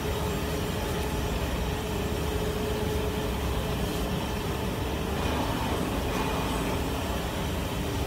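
Steady low rumble and hum of running machinery, with a faint steady tone and no distinct strokes or impacts.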